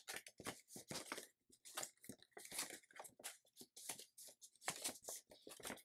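Sheet of letter paper rustling and crinkling under the fingers as a folded flap of a paper airplane is tucked in under the other layers: faint, irregular short rustles.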